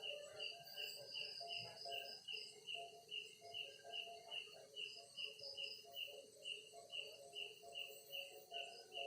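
Crickets chirping at night in an even rhythm, about two and a half high chirps a second, with other lower calls repeating underneath.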